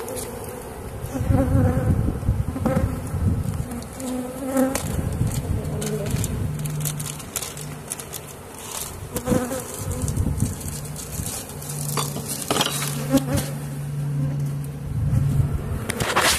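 Honeybees buzzing over an open hive, with bees flying close past the microphone in a steady low hum that swells and fades. Scattered knocks and clicks come from the hive being handled.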